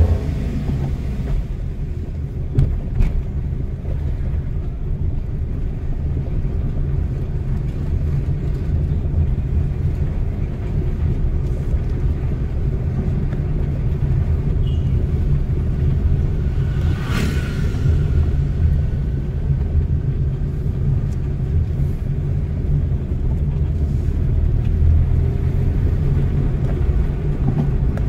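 Steady low rumble of a car's engine and tyres on the road, heard from inside the moving car. A brief sharper noise stands out about two-thirds of the way through.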